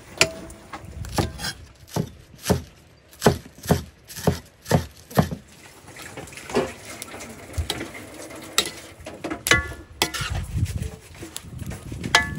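Spatulas knocking and scraping against a large wok while stir-frying pechay with shrimp: a run of sharp clacks about two a second, then scattered ones further apart.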